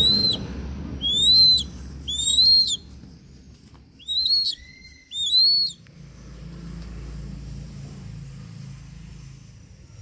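A hawk mantling over its prey gives five loud, high whistled calls, each rising and then dipping slightly at the end, spaced about a second apart. After about six seconds the calls stop and only a low, steady rumble remains.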